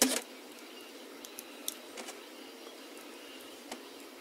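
Metal clatter of hand tools and small steel parts being handled on a metal tray: one sharp clatter at the start, then a few light clicks about a second to two seconds in, over a steady faint room hiss.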